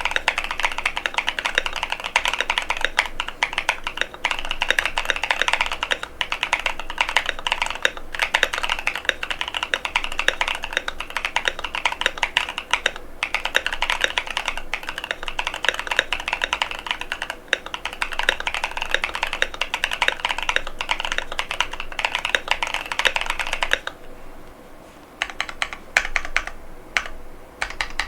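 Fast, continuous typing on a Keychron Q6 Max mechanical keyboard with Durock White Lotus linear switches and PBT Cherry-profile keycaps: a dense stream of keystrokes. About four seconds before the end it thins to a few scattered single keypresses.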